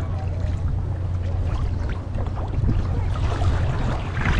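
Steady low rumble of boat engines running in the lock, with water splashing louder from about three seconds in.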